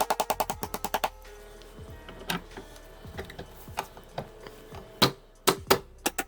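Background music, with a fast run of sharp clicks, about ten a second, during the first second, then scattered light clicks and knocks of barn-door hanger hardware and tools being worked.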